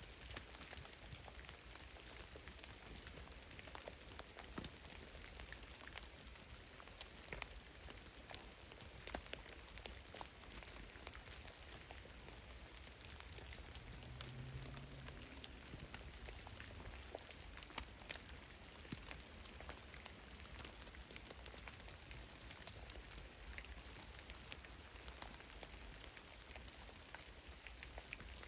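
Drops of meltwater falling from heavy melting snow in a forest, landing as irregular, scattered single drips over a faint steady hiss.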